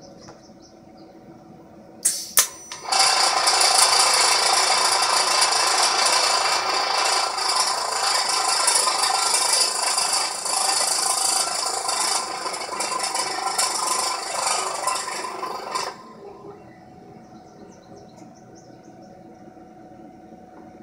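TIG welding arc from an AC/DC 200P TIG welder, fusion welding 316 stainless steel without filler. A short arc strike about two seconds in, then a steady buzzing hiss for about thirteen seconds that cuts off abruptly a few seconds before the end.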